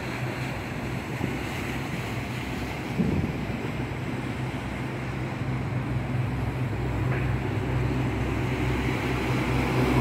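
Passenger boat's engine running with a steady low hum as it passes underneath, the hum growing stronger about halfway through, over a rush of wind and water.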